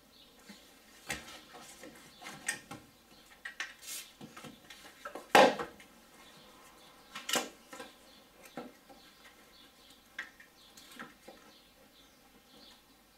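Scattered metallic clinks and knocks from hand work among the metal parts of a car's engine bay, with one louder clunk about five seconds in.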